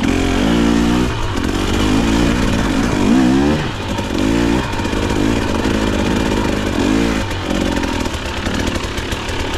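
KTM dirt bike engine running, its pitch rising and falling in short throttle changes about once a second over a steady low running note.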